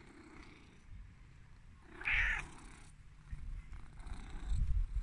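Tortoiseshell cat giving one short meow about two seconds in, against a low rumble.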